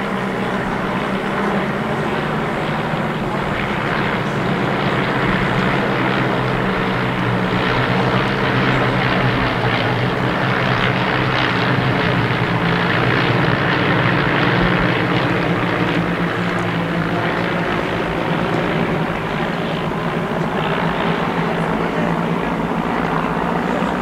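Piston engines and propellers of a formation of nine biplanes droning overhead in a display pass: a steady drone that grows louder toward the middle and eases a little later.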